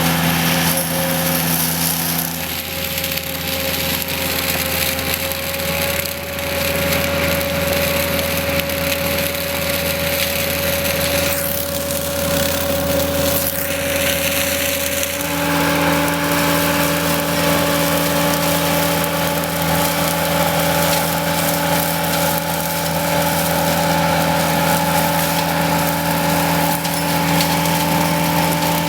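Skid steer engine running steadily while a hydraulically driven attachment on the side-arm boom works, with a dense noise over the engine's steady hum. About halfway through, the engine note steps up to a higher, stronger pitch.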